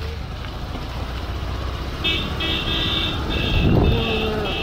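Motorcycle riding along a road, with a steady low engine and wind rumble. About two seconds in, a vehicle horn starts honking in a quick series of short toots.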